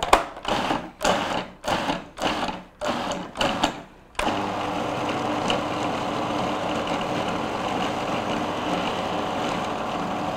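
Electric food processor blending drained kidney beans. It is pulsed in several short bursts about half a second apart, then runs steadily from about four seconds in, chopping the beans down toward a smooth purée.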